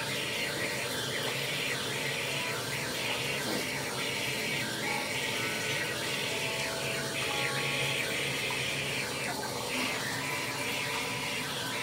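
Steady rush of running water, with faint irregular lapping and splashing as a cat drinks from a toilet bowl.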